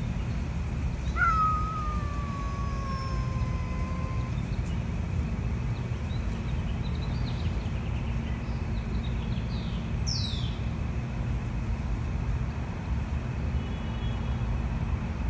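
A cat's angry warning yowl in a face-off between two cats: one long call about a second in that slides slowly down in pitch over about three seconds. A steady low rumble runs underneath.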